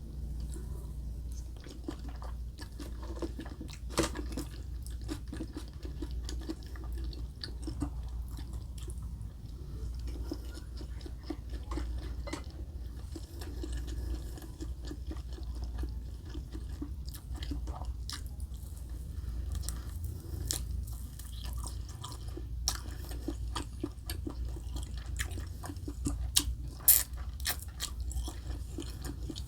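Close-miked chewing and crunching of a meal of chicken katsu, rice and macaroni salad, with bites and sharp mouth clicks scattered throughout, the loudest near the end. A steady low hum runs underneath.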